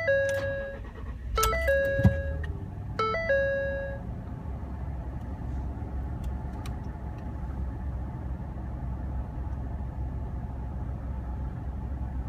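2012 Ford F-150's 3.5 L EcoBoost twin-turbo V6 starting with a short burst about two seconds in, then idling with a steady low rumble just after startup. A cabin warning chime dings about every second and a half over the first four seconds, then stops.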